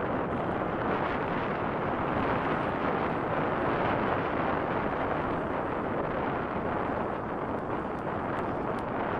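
Steady wind noise buffeting the microphone while riding a mountain bike, mixed with the rumble of the tyres rolling over a dirt track.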